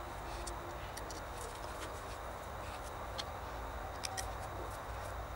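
Faint, irregular light clicks and ticks of a thin metal rod and cotton wool working in the wick opening of a metal petrol lighter, over a steady background hum and hiss. The sharpest clicks come about three and four seconds in.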